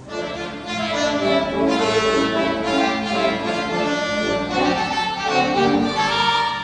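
Orchestral music led by violins and other bowed strings, swelling back in after a brief dip at the start.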